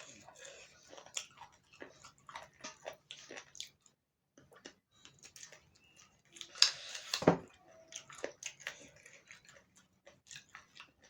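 Close-miked chewing and eating mouth sounds: wet clicks and smacks. There is a brief gap a few seconds in, and a louder noisy burst, crunch- or scrape-like, about two-thirds of the way through.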